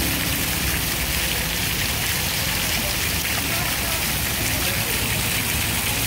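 Ground-level fountain jet spattering water steadily onto wet paving tiles.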